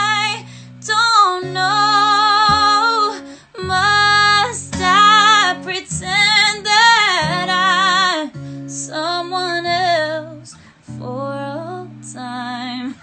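A woman singing a slow ballad over her own strummed acoustic guitar chords, with held, wavering notes and vocal runs; the phrases get softer near the end.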